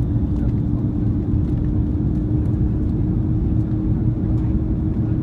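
Steady low rumble of an airplane's engines just after landing, with a constant hum over it and a few faint clicks.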